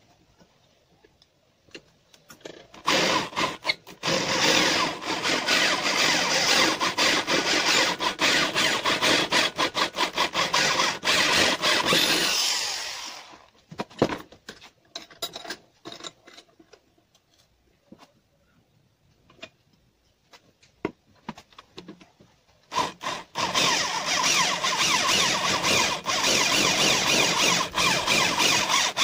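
Electric hand drill boring into a metal part clamped in a bench vise: a steady grinding whine for about ten seconds that winds down. A pause with scattered clicks and knocks follows, then the drilling starts again for the last six seconds.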